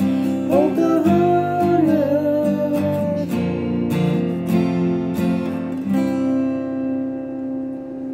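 Acoustic guitar strummed in a steady rhythm. A last strum about six seconds in is left to ring and fade as the song's closing chord.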